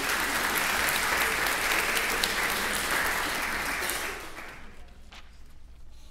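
Audience applauding; the clapping dies away about four seconds in.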